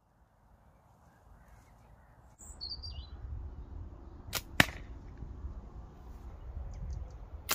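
A dart shot from a slingshot: two sharp cracks about a fifth of a second apart, midway through, with two more sharp cracks near the end, over low wind rumble on the microphone. A bird chirps briefly before the first shot.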